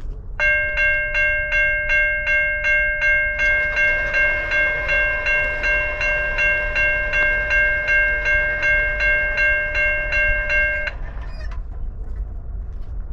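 Railroad crossing bell ringing at about two strokes a second as the crossing signals activate for an approaching train, stopping suddenly near the end once the gate arm is down.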